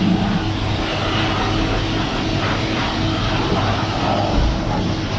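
Blow dryer of a K9000 self-service dog wash running steadily, a strong stream of air rushing from the hose onto a wet dog's coat over a constant low hum.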